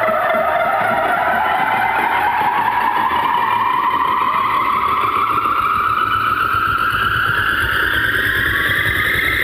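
Competition DJ sound system playing a long synth riser at high volume, one pitched tone climbing slowly and steadily in pitch as a build-up.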